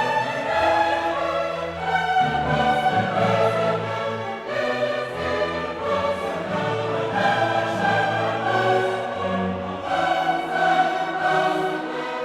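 Orchestral classical music with a choir singing sustained chords.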